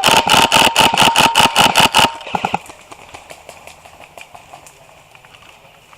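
Airsoft rifle firing a rapid string of shots, about seven a second, for about two seconds, then stopping; fainter scattered shots from other players follow.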